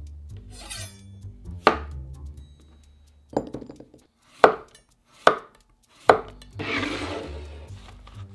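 A chef's knife slicing a zucchini into rounds on a wooden cutting board: about five sharp knife strikes against the board, a second or so apart. Near the end comes a rustle of hands gathering the slices on the board.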